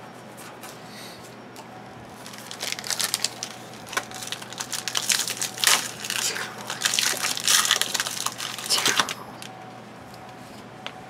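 Plastic wrapper of a trading-card pack crinkling as it is handled and opened: a dense run of crackles starting about two seconds in and stopping about two seconds before the end.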